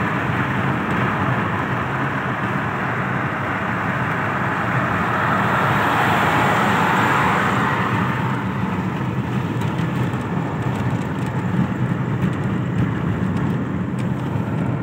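A car driving, heard from inside: steady engine and road noise that swells for a few seconds around the middle.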